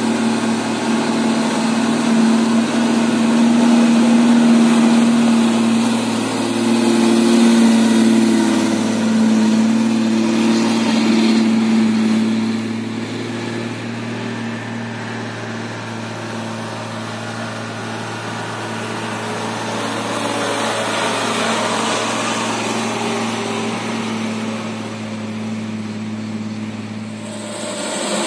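Truck engine running at a steady, unchanging pitch with road noise around it, louder in the first half.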